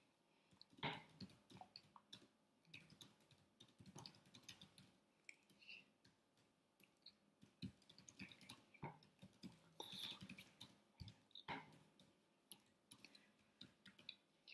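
Near silence with faint, scattered clicks and soft taps, the incidental noise of hands meeting and lips moving while someone signs. The louder taps come about one second in and again around ten and eleven and a half seconds in.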